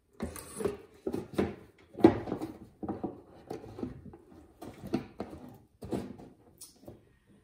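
Cardboard jigsaw puzzle box and lid being handled and set down on a wooden table, with a scattered clatter of puzzle pieces: a string of irregular knocks and rustles, loudest about two seconds in.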